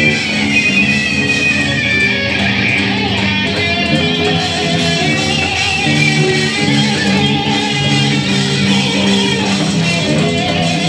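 Electric guitar playing hard rock: a low riff of held, changing notes with a higher melodic line above it.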